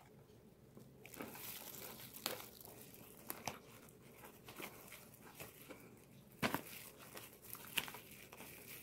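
Thin disposable plastic food-handling gloves crinkling faintly as gloved hands move and grip food, with a few sharper crackles.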